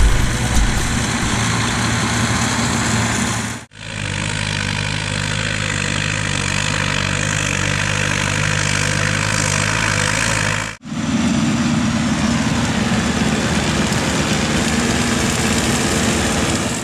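Diesel engines of farm tractors and a sugar beet harvester running steadily in the field, in three takes with abrupt cuts about 4 and 11 seconds in.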